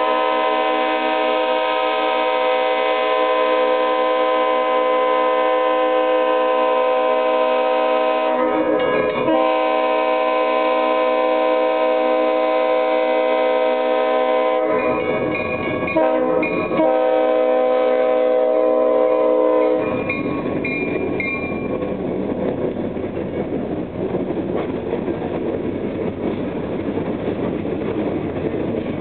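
Diesel locomotive air horn sounding the grade-crossing signal of long, long, short, long blasts as the Everett Railroad GP16 approaches the crossing; the last blast ends about twenty seconds in. Then freight cars roll past with rumbling wheel clatter.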